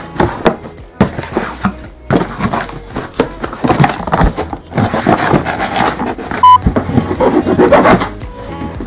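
Cardboard shipping box being handled and opened: rustling, scraping and knocking of cardboard close to the microphone, with one short high beep about six and a half seconds in.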